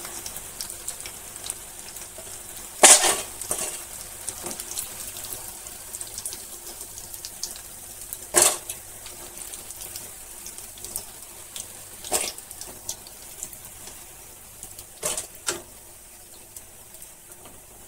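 Hot oil sizzling in a metal kadai as crisp deep-fried soya chunks are scooped out with a metal spoon and dropped into a metal bowl, with sharp clinks of spoon on pan and bowl, the loudest about three seconds in and another about eight seconds in.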